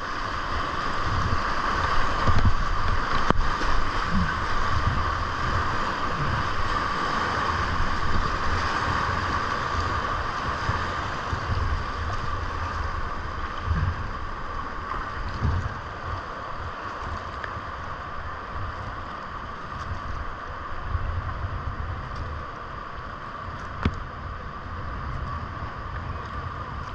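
Rushing whitewater of a creek rapid at high spring flow, heard from the kayak, with low rumbling of wind on the microphone. A sharp tap about three seconds in and another near the end; the water noise eases somewhat in the second half as the boat reaches calmer water.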